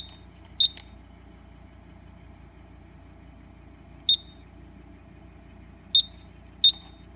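Gemini security-system keypad beeping as its buttons are pressed, one short high beep per key press while a code is keyed in. There are five beeps: two close together at the start, one about four seconds in, and two more near the end.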